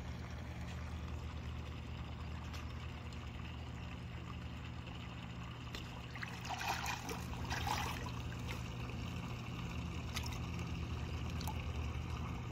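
Fish on a rope stringer thrashing at the surface of the shallows, splashing in two short bursts a little past the middle, over a steady low rumble.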